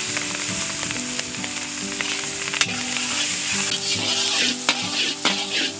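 Chopped garlic, green chillies and capsicum sizzling as they fry in hot oil in a large pan, with stirring. The utensil clicks and knocks against the pan more often in the second half.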